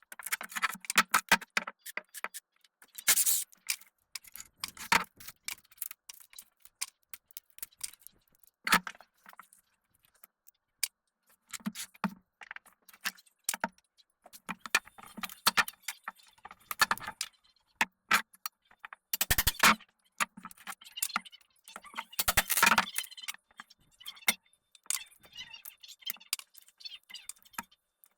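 Irregular clattering and knocking in bursts, with sharp rattles and dull thuds and short pauses between them: hand demolition of rotten wooden flybridge seating and flooring, with pieces pried loose and debris clattering down.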